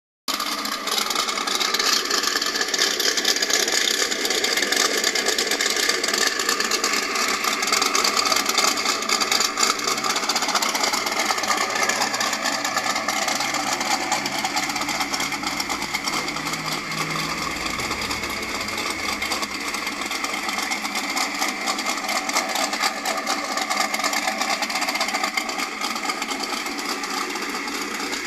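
The Dodge Ram SRT-10's 8.3-litre V10, built for nitrous, idling steadily. It comes through a small microphone with almost no bass.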